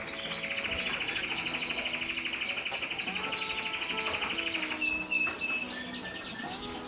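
Canary singing: a fast, steady rolled trill held for about four seconds, then a few short high notes, with other canaries chirping throughout.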